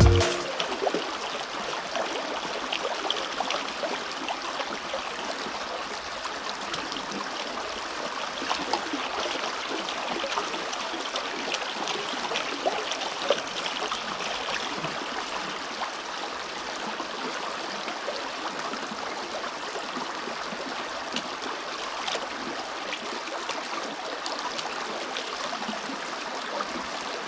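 Shallow creek water running, with water swishing in a plastic gold pan as it is worked in the creek, and a few faint clicks.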